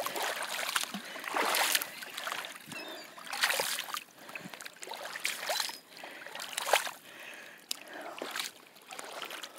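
Shallow water lapping and splashing at a sandy shoreline in uneven surges every second or so, as small waves wash in around bare feet wading at the edge.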